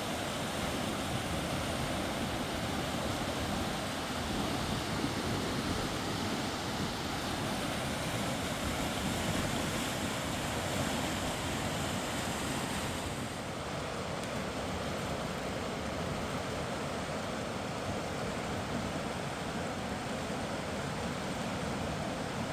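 Mountain river flowing: a steady rush of water, a little less hissy from a little past halfway.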